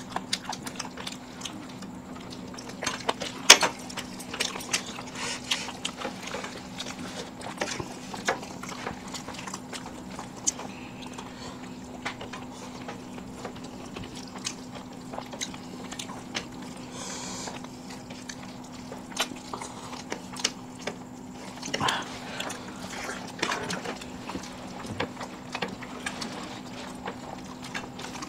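People eating mutton biryani: chewing and mouth sounds with many scattered short clicks, over a steady low hum.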